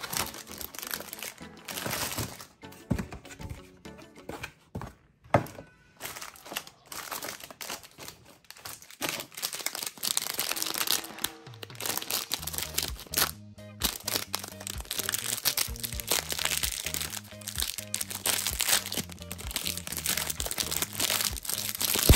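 Cardboard snack box and a plastic snack wrapper handled and torn open, with irregular crinkling and crackling. Light background music plays underneath, steadier in the second half.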